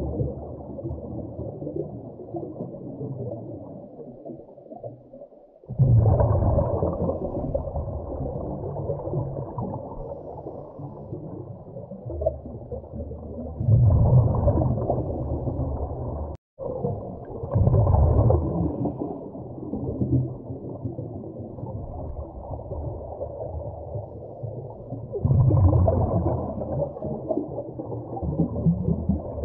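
Scuba regulator exhalation bubbles and underwater rumble heard through an underwater camera housing: a steady muffled rumble with a louder bubbling surge every several seconds, four times, cutting out for a moment a little past halfway.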